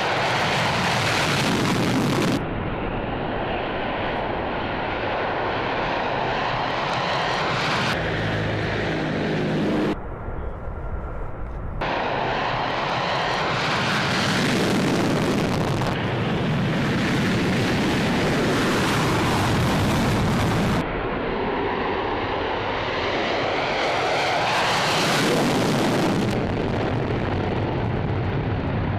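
Military aircraft engines running loudly, in several edited segments that cut abruptly from one to the next every few seconds; about eight seconds in, a short stretch carries a droning, pitched hum.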